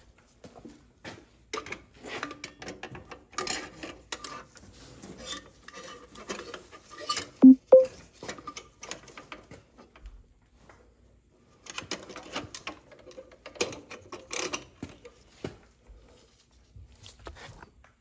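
Metal hand tools and oil-burner parts clinking, tapping and scraping in irregular handling. A brief, loud squeak comes about halfway through, followed a little later by a short lull.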